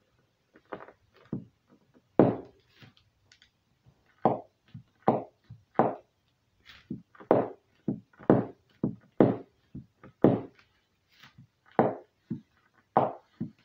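Toe joints cracking: a run of about twenty short, sharp pops at an uneven pace, one or two a second, as the toes are curled under and pressed against the floor.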